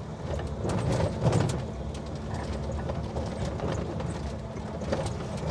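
Jeep running along an unpaved dirt track, its engine a steady low hum under a busy clatter of clicks and knocks from the body and fittings rattling over the rough ground, loudest about a second in.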